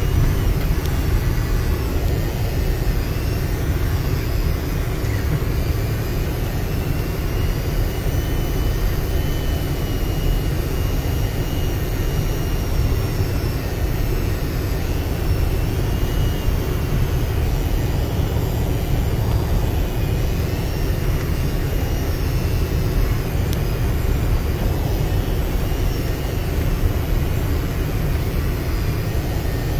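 Off-road vehicle's engine running steadily under load as it climbs a steep, rocky dirt track, with a dense low rumble of engine and tyres, heard from inside the cab.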